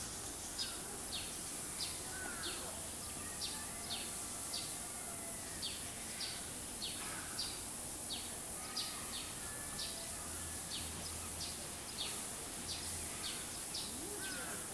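A bird calling over and over with a short high chirp that falls in pitch, about two a second, over a steady high hiss.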